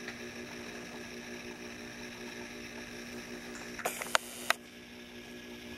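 Steady electrical hum with a faint hiss, broken about four seconds in by three sharp clicks close together, the middle one loudest.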